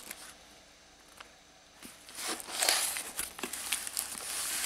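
Padded mailing envelope wrapped in plastic tape rustling and crinkling as it is handled and turned over, starting about two seconds in.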